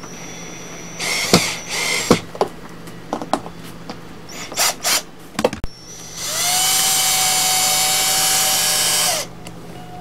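Power drill driving small wood screws to fasten metal conduit straps: knocks and clatter of handling first, then the drill runs steadily for about three seconds and winds down.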